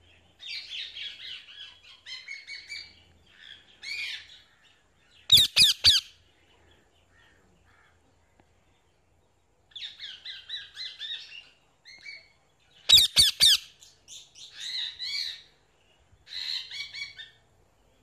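Parrot calls: bursts of chattering calls with quiet gaps between, and two very loud quick clusters of calls, one a little over five seconds in and one about thirteen seconds in.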